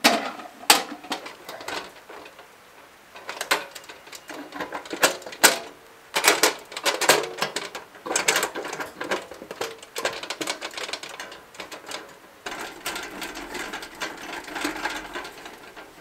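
Steel two-burner camp stove being unlatched and opened: a string of sharp metal clicks and clatters from the latches, lid, side wind panels and cooking grate, then a longer run of rattling and scraping near the end.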